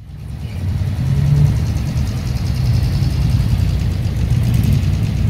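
Car engines running at low revs as cars roll slowly past in a line, a steady low rumble that swells briefly about a second in.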